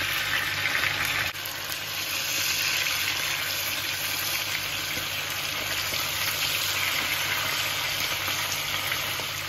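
Bone-in chicken pieces sizzling steadily in hot oil in a grill pan. The level dips briefly about a second in.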